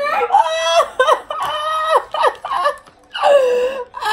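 A person's voice making high, strained, drawn-out non-word sounds: four long notes that slide in pitch, with short breaks between.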